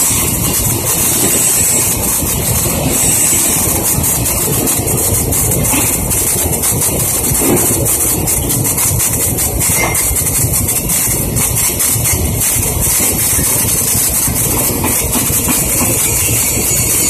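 Stick-welding arc from a 1/8-inch 7018 electrode crackling steadily as it burns along a steel plate in the flat position.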